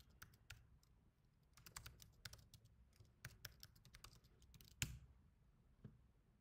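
Faint computer keyboard typing: scattered keystrokes as a username and password are typed into a login form, with one louder click about five seconds in.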